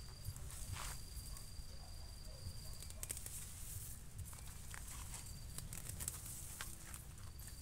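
Weeds being pulled up by hand: rustling and crackling of leaves and stems and soft tearing as roots come out of the soil. Behind it an insect keeps up a steady high-pitched trill that breaks off and starts again several times.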